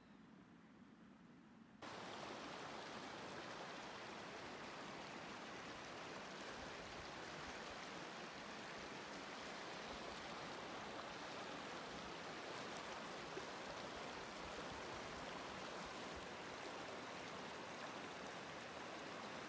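Steady rushing of a river flowing over rocks, cutting in abruptly about two seconds in after a quieter stretch.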